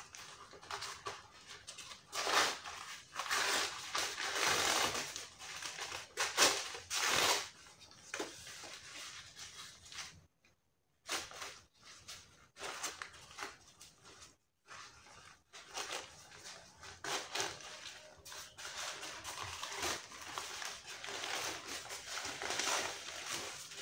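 Paper wrapping rustling and crinkling in irregular bursts as it is pulled open by hand, cut twice by sudden brief silences.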